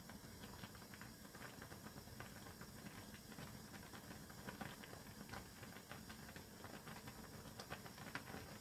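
Faint, irregular popping and crackling of noodles boiling in a pan of water on a portable gas stove.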